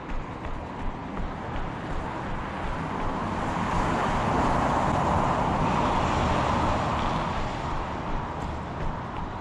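A road vehicle passing by, its noise swelling over a few seconds and fading away, over the runner's regular footfalls, which are plainest at the start and end.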